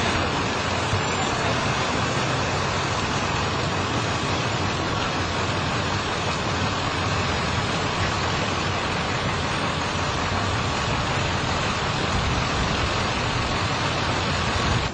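Steady vehicle noise: an engine running under an even, loud rushing hiss, with no siren sounding.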